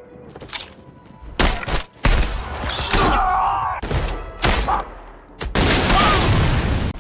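AI-generated action sound effects: a run of sharp bangs and thuds in the first two seconds, then long stretches of loud rumbling noise broken by further hits about four and a half and five and a half seconds in.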